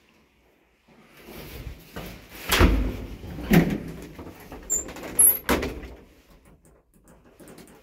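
Manual doors of a 1980 IFMA traction elevator being handled and shut: three loud clunks about a second or two apart, with a couple of brief high squeaks just before the last one.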